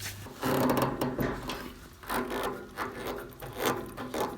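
Radiator valves being turned open by hand: a run of irregular clicks and rubbing from the metal fittings.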